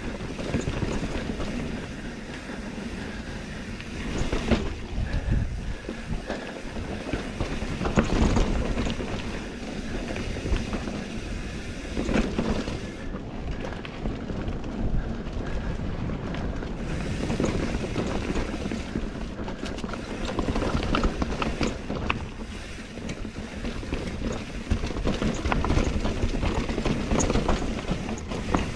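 Mountain bike riding along dirt singletrack: knobby tyres rolling over packed dirt and dry leaves, with wind rushing past a mic mounted on the bike. The rushing noise rises and falls in uneven surges.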